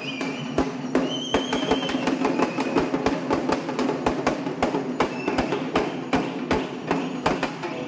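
Festival drum band playing fast, driving rhythm for the Potharaju dance: dense sharp strokes at about four to five a second over a steady low drone, with a brief high-pitched wavering tone about a second in.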